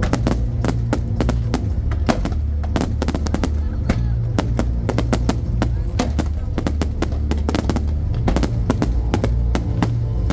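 Aerial fireworks display: a dense, rapid run of bangs and crackles, several a second, over loud music with a heavy bass line.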